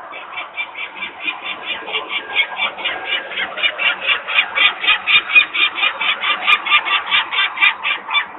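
Adult peregrine falcon giving its rapid, harsh alarm call, a long run of calls at about four to five a second that grows louder towards the middle. It is the parents' alarm at disturbance near the nest, where workers are making noise.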